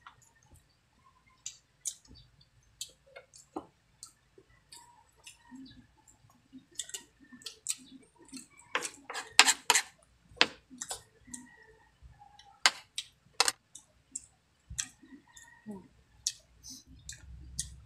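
Close-up mukbang eating sounds: wet lip smacks and mouth clicks from chewing squid adobo and rice, scattered and irregular, thickest about nine to ten seconds in.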